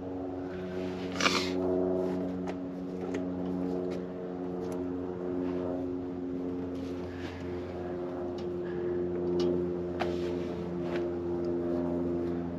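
Scattered light clicks and taps of a brass flare fitting and copper gas line being handled and threaded by hand, the loudest a brief scrape about a second in, over a steady droning hum of several held tones.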